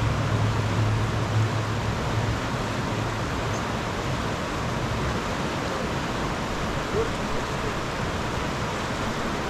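Creek water flowing steadily, an even rushing hiss. A low rumble underneath fades out about two seconds in.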